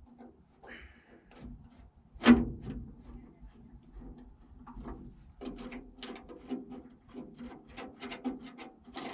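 Metal clicks and knocks of door latch hardware and screws being handled on an M35A2 truck door, with one sharp knock about two seconds in and a run of quick ticks in the last few seconds.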